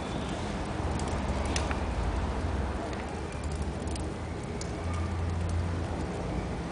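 Wood fire burning in a fireplace, crackling with sharp pops every second or so over a low, steady rumble.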